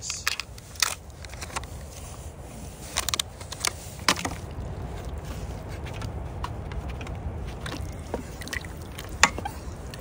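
A spoon stirring thickening curry in a pot, scraping with scattered clicks and knocks, over a steady low rumble.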